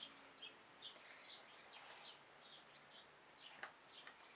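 Faint bird chirping: short high notes repeated about twice a second. A couple of soft clicks near the end.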